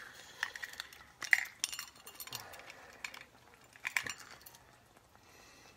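Hot sauce bottle being unscrewed by hand: its black screw cap twisting off, with a few sharp clicks in the first four seconds, then quieter handling.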